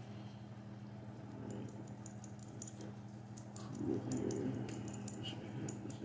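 Pen nib scratching and ticking on sketchbook paper in quick short hatching strokes, over a steady low electrical hum. A brief low sound near four seconds in is the loudest moment.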